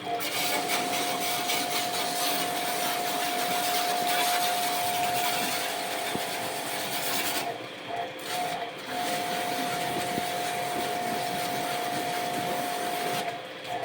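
Pressure washer running and spraying, a steady motor whine under a wide hiss of spray. It breaks off for about a second and a half midway and again near the end, with the whine pulsing while the spray is off.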